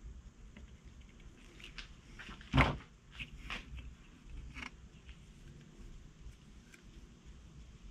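Handling noise on a wooden workbench: one sharp knock about two and a half seconds in, then a few lighter clicks and taps as a sealant tube is set down among the tools and a plastic circuit board is picked up.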